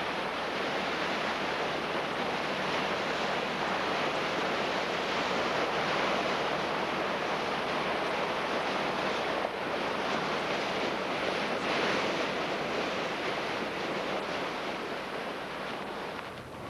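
Sea water rushing and splashing along the hull of a fishing boat under way, with wind on the microphone. It is a steady, even rush that eases off near the end.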